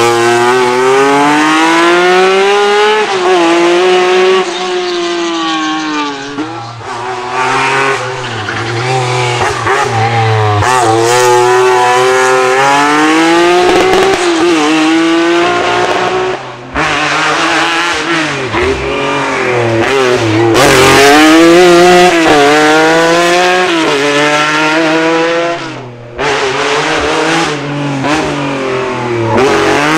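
Lancia Stratos HF rally cars' Ferrari-derived 2.4-litre V6 engines revving hard through the gears, the pitch climbing and dropping again and again as they accelerate and lift off. The sound breaks off abruptly a few times.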